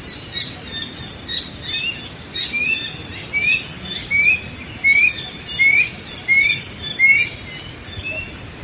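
Wild birds calling: one bird repeats a short upward-sweeping note about every two-thirds of a second through the middle, over scattered higher chirps from others, with insects buzzing steadily in the background.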